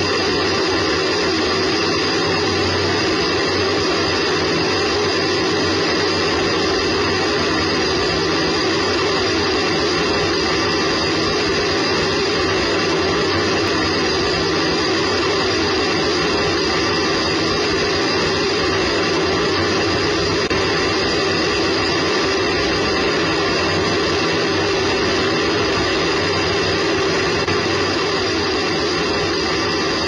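Space Shuttle solid rocket booster burning during ascent, heard from a camera mounted on the booster itself: a loud, steady, dense rush of noise with a few steady tones running through it.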